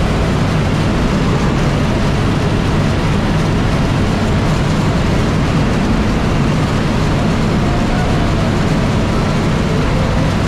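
Loud, steady drone of a skydiving jump plane's engines and propellers, with rushing air noise, heard from inside the cabin in flight.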